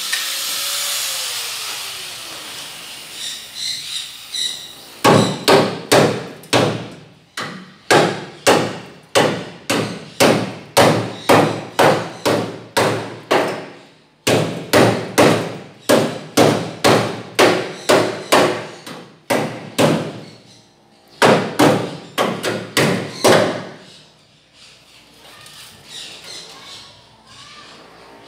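Hammer striking a rusted steel cart frame, sharp blows about two a second in three runs with short pauses between them. A power-tool noise fades away in the first few seconds.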